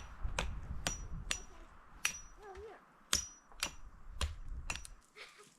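Repeated sharp strikes of a metal-headed tool on wood, about two a second and unevenly spaced, each with a brief high ring, as a pole is cut for a shelter frame.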